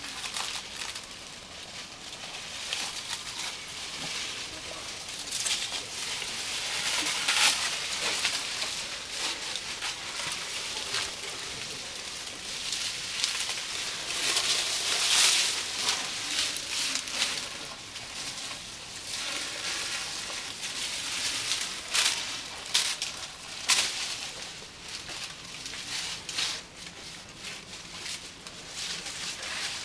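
Leafy branches rustling and crackling as elephants pull them down with their trunks and strip off the leaves, in irregular bursts.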